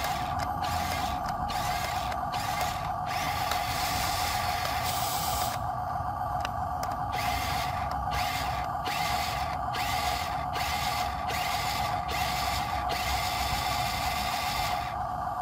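Radio-controlled toy truck's small electric motor and gearbox whirring in short bursts about twice a second, with two longer runs, over a steady whine.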